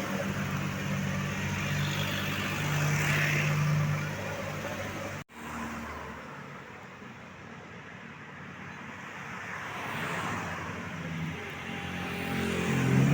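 Tour buses and road traffic passing, with steady engine sound and road noise. The sound breaks off abruptly about five seconds in, then builds again as another large vehicle approaches near the end. No telolet horn melody is heard.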